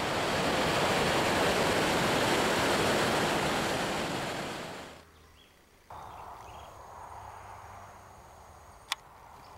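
Whitewater rapids on the Rogue River, water rushing loudly and steadily, fading out about five seconds in. After a brief near-silent gap, a much fainter steady outdoor hiss, with a single sharp click near the end.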